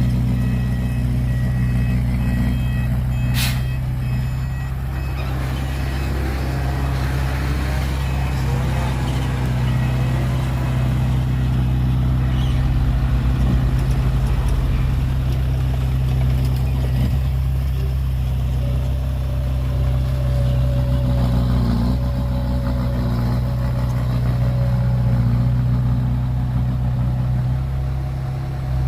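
Heavy diesel earthmoving machinery running steadily with a deep engine drone that swells and eases slightly, and one sharp click about three seconds in.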